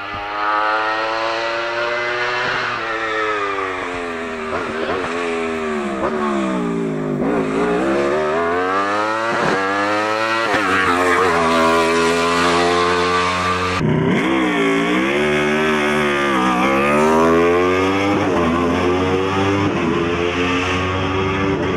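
Wolf Thunder E2SS 1000 race car's 1000 cc motorcycle-derived engine revving hard up a hillclimb. Its pitch climbs and drops again and again as it accelerates and slows for bends. The sound changes abruptly about 14 seconds in, where another run begins.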